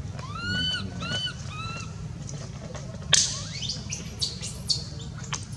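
High-pitched animal calls: three short arched, whistle-like calls in the first two seconds, the first the longest, then a run of sharp upward-sweeping squeaks from about three seconds in.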